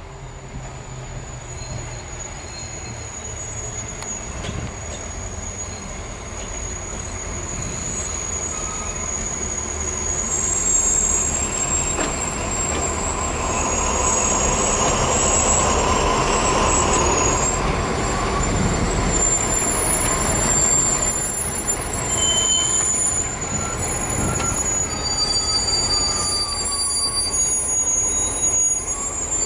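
Two SNCF BB 67400 diesel-electric locomotives running in multiple approach and pass close by with their diesel engines running, growing louder over the first ten seconds or so. High-pitched wheel squeal rides over the engine noise and comes in stronger near the end as the loaded coil wagons roll past.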